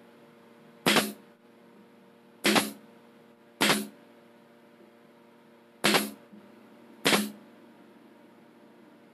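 Brad nailer firing brads into plywood slats: five sharp shots at uneven intervals, each a quick snap with a short ring after it.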